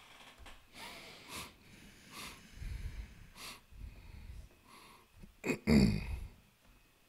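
Faint stifled snorts and breaths through the nose from someone holding in laughter, with a louder one about five and a half seconds in.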